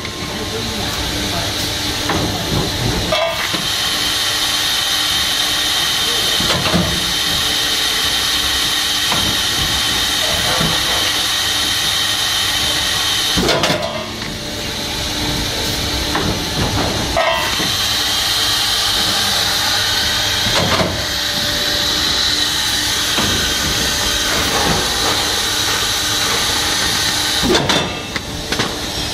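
Extrusion blow molding machine running: a steady hiss of air, broken by a sharp clack roughly every three and a half seconds as it cycles.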